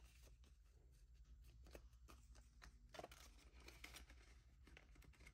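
Near silence with faint, scattered rustles and clicks of paper bills and cash envelopes being handled.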